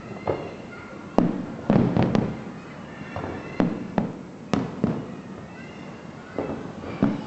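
Aerial firework shells bursting in an irregular series of about ten sharp bangs, each trailing off in a short echoing rumble, with the loudest cluster between one and two and a half seconds in.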